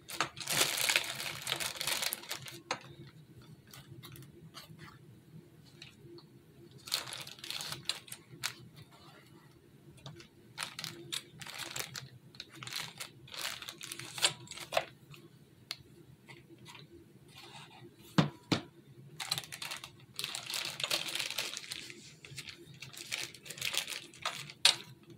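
Clear plastic piping bag crinkling and a plastic spoon scraping as white paste is spooned into the bag: irregular bursts of rustling with a few sharp clicks.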